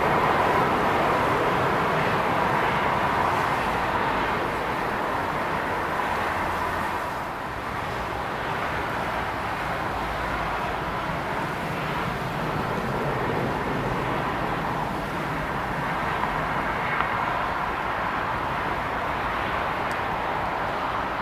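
Airbus A380 jet engines during approach, touchdown and landing rollout: a steady rush of jet noise with a faint whining tone, dropping a little about seven seconds in.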